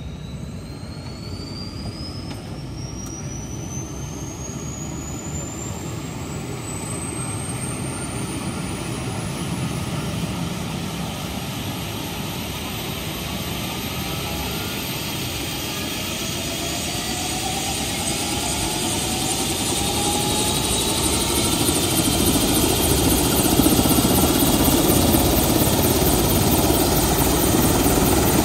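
Airbus H135 twin-turbine helicopter starting up: a high turbine whine climbs steadily in pitch, a further rising whine joins around ten seconds in, and the sound grows steadily louder as the main rotor spins up, with rhythmic blade beating building near the end.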